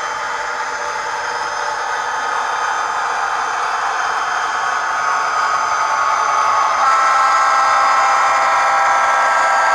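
Recorded SD45 diesel engine sound from an ESU LokSound decoder, played through a model locomotive's small speaker, so it is thin with little low end. It grows gradually louder and steps up about seven seconds in, like the engine being notched up.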